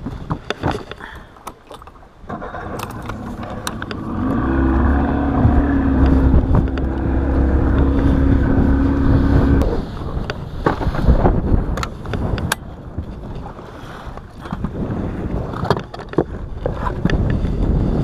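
Fishing boat's engine running steadily under way, coming up about two seconds in, louder from about four seconds, and cutting off about ten seconds in. After that, wind buffeting the microphone and scattered knocks of gear being handled in the boat.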